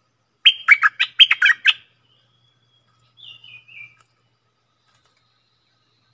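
Stripe-throated bulbul calling: a quick, loud run of about seven sharp notes about half a second in, then a fainter phrase that steps down in pitch about three seconds in.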